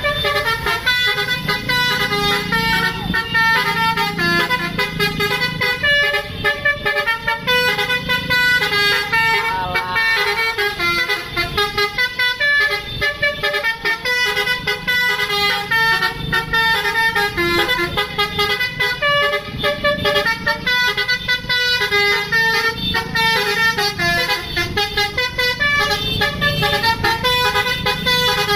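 Bus 'telolet' basuri multi-tone air horn playing a melody, its notes changing quickly one after another without a break.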